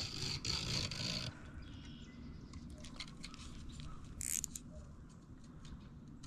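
Fishing reel and rod being handled, with a run of light clicking and hiss in the first second and scattered small ticks after. A short hiss comes about four seconds in, over a faint low rumble.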